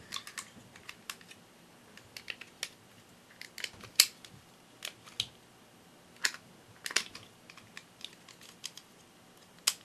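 Hard plastic toy pieces clicking and clacking as they are handled and set aside: irregular sharp clicks, a few at a time, the loudest about four seconds in.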